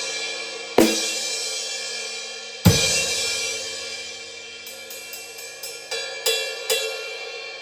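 Sabian AA 18-inch Rock Crash cymbal struck hard twice, about a second in and again near three seconds, each crash washing and slowly dying away. From about five seconds in it is played with a run of lighter, quicker strikes, about three a second, and the ring fades toward the end.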